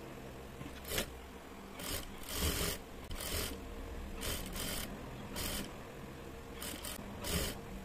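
Industrial lockstitch sewing machine stitching a narrow folded hem along a frill strip in short bursts of a fraction of a second each, stopping between runs while the edge is folded, over a faint steady motor hum.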